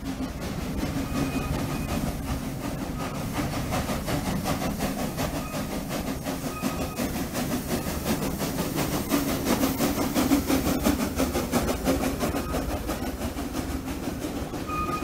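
Narrow-gauge steam train rolling along, heard from aboard: a steady rumble and clatter of the running gear and cars. A thin, high wheel squeal comes in briefly a couple of times and again near the end.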